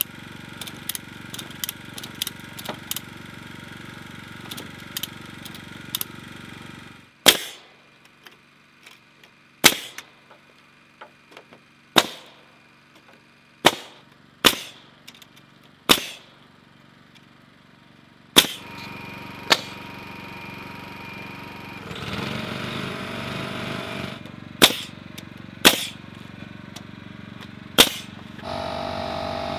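Pneumatic framing nailer driving nails to toenail roof rafters onto a beam: about eleven loud, sharp shots at uneven spacing, starting about seven seconds in. Before them, quick light clicks of a ratchet strap being worked, and near the end a steady hum sets in.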